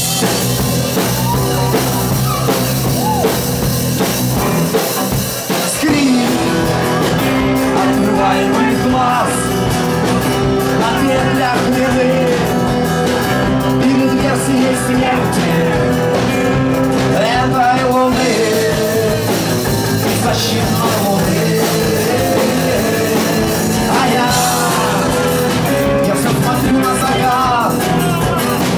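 Rock band playing live, with a singer.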